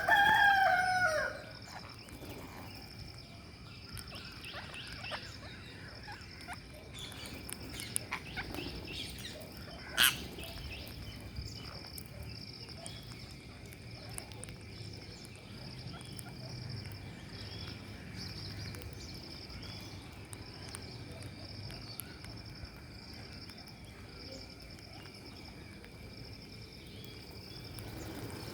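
Rose-ringed parakeet giving one loud squawk that falls in pitch over about a second. Then a steady pulsing insect trill runs on, with faint scattered chirps and a single sharp click about ten seconds in.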